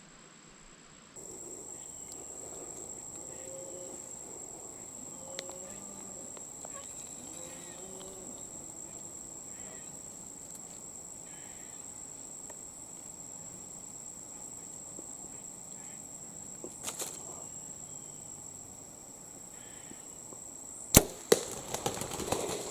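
Steady high-pitched insect drone. Near the end a bow is shot with a single sharp snap, the loudest sound here, followed by a quick scatter of thumps and rustling as the arrow hits the turkey and she flees.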